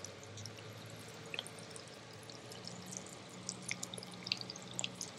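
Faint fizzing and small scattered pops of electrolyte bubbling in the open cells of a lead-acid car battery being desulfated with DC current from a stick welder, over a low steady hum.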